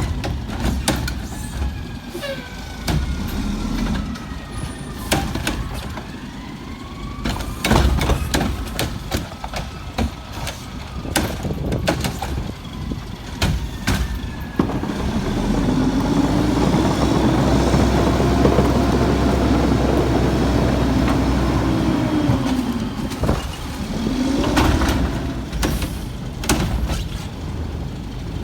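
Heil garbage truck at work: sharp bangs and clatter in the first half, then about halfway through the engine revs up and holds for several seconds before dropping back, with a second short rev near the end.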